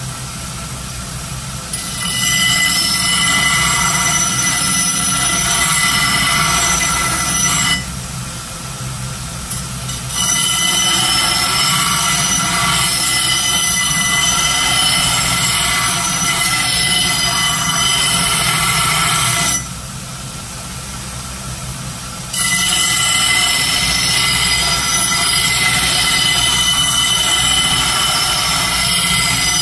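Belt sander running, with a steel axe head pressed against the abrasive belt in three long grinding passes. Each pass is a loud, steady, screeching grind. Between passes there are short pauses of a couple of seconds where only the sander's motor is heard. The grinding is reshaping and sharpening the axe's bevel.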